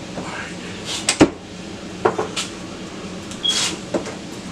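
A few short, sharp knocks and clicks, the loudest about a second in, over a faint steady low hum.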